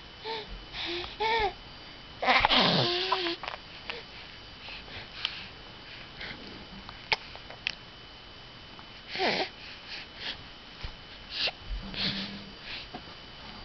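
Three-month-old baby cooing and babbling in short separate vocal sounds, with one louder, breathier vocal burst about two seconds in and a few more coos later.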